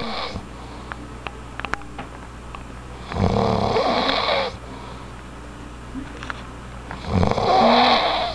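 A sleeper snoring: two long, loud snores about four seconds apart, with quieter breathing and a few faint clicks between them.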